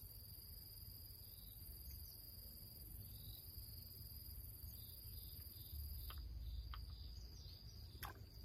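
Insects droning steadily in the background, one high steady note and a higher one that stops about six seconds in, over a low rumble; a couple of faint ticks near the end.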